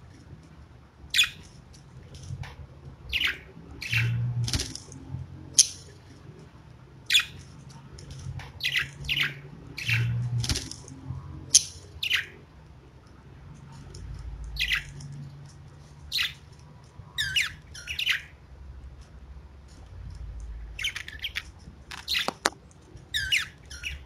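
Pet budgerigars giving short, sharp chirps and squawks at irregular intervals, a few of the calls with a quick warble.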